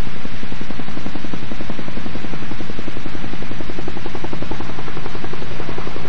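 P-51 Mustang's V-12 piston engine running with a rapid, even pulsing beat as the fighter passes along the runway, over heavy hiss.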